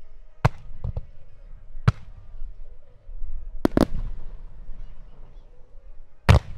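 Aerial firework shells bursting: a string of about five sharp bangs with a couple of smaller pops between them, each trailing off in an echo. The loudest bang comes near the end.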